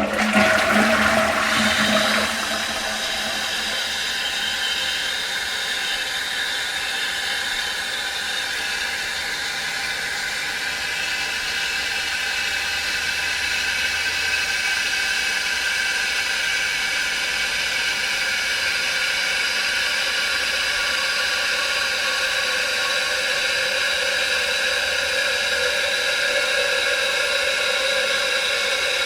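Toilet flushing with a loud rush of water for about two seconds, then the tank refilling: a steady hiss of water through the fill valve with a faint whistling tone.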